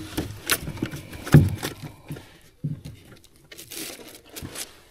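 Knocks, scrapes and plastic crinkling as a crappie is picked up from among plastic water bottles and cans on the boat floor, with a sharp knock about a second and a half in and lighter rustles after.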